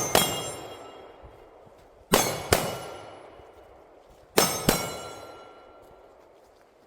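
Three quick pairs of gunshots at steel targets, each hit leaving the steel ringing out and fading over a second or two.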